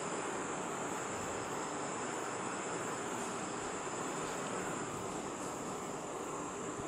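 Steady, high-pitched chorus of insects over an even background hiss.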